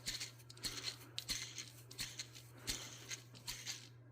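Worn automotive belt tensor, off the engine, being turned and rocked by hand: irregular short rasping, grinding scratches from its worn pulley bearing and pivot. It has a lot of play and is badly worn.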